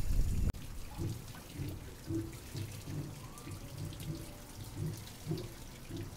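Water splashing and dripping from the buckets of an overshot waterwheel as it turns, in irregular low slops and gurgles. A louder low rumble fills the first half second and cuts off abruptly.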